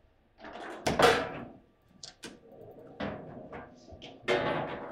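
Table football play: a series of sharp clacks and knocks from the ball, the plastic players and the rods of the foosball table, about six in all, the loudest about a second in.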